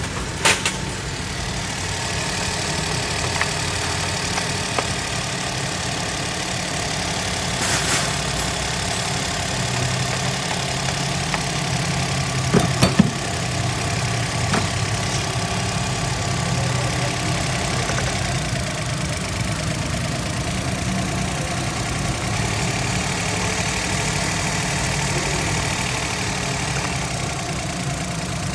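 Suzuki Alto's small three-cylinder engine idling steadily from cold, its cylinder-one intake tappets freshly freed and adjusted to cure a misfire. A few sharp clicks sound over the idle, the loudest pair about halfway through.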